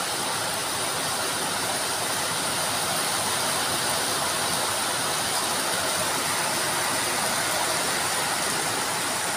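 Steady rain falling on a corrugated metal roof, an even hiss with no let-up.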